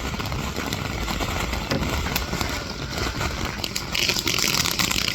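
A burning firework hissing, with scattered crackles; about four seconds in the hiss turns much louder and brighter.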